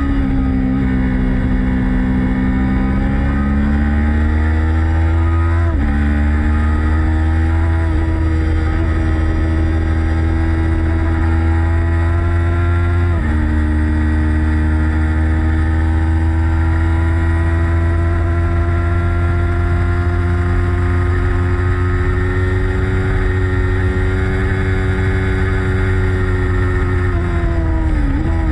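Motorcycle engine pulling hard under load, its pitch climbing slowly through each gear and dropping sharply at upshifts about 6 and 13 seconds in, with a quick dip and rise in revs near the end.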